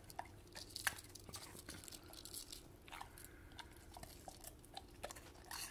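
German Shepherd nibbling small bites off a cracker held in a hand: faint, irregular crisp crunching clicks.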